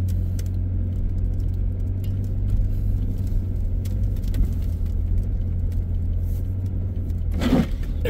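Car engine and tyre rumble heard from inside the cabin while driving slowly over a rough, icy track, with scattered light ticks throughout. Near the end a windshield wiper scrapes across the icy glass.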